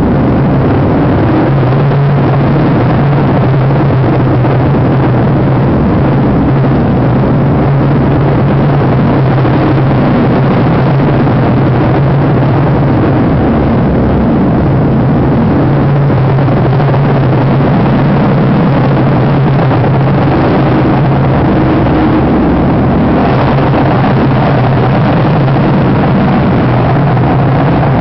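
Live harsh noise music: a loud, unbroken wall of distorted electronic noise with a steady low drone running through it. A higher held tone comes in near the end.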